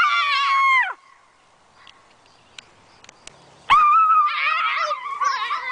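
Boys screaming in fright: one long high scream that falls off about a second in, then after a pause a second, wavering scream with several voices overlapping.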